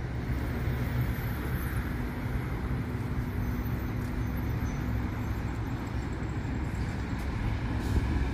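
Diesel engine of a coach running steadily as the coach drives slowly past, a low drone that grows a little louder near the end.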